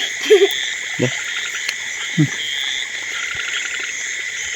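Night chorus of frogs and insects: a steady high insect trill with a fast pulsing chirr, and three short low croaking calls in the first half, the last falling in pitch.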